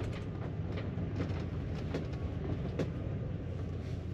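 Steady low rumble of a Ford Tioga Class C motorhome heard from inside its cab while driving slowly, with a few light clicks and rattles from the cab and coach.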